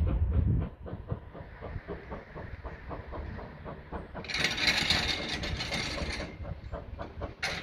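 USATC S160 2-8-0 steam locomotive working hard with a fast, regular beat of exhaust and clanking motion. A heavy low rumble comes at the very start, and a burst of steam hissing comes a little over four seconds in and lasts about two seconds.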